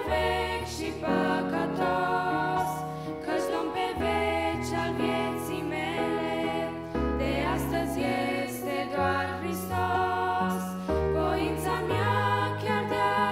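Roland digital keyboard playing a slow hymn interlude: piano chords over held bass notes that change every second or two.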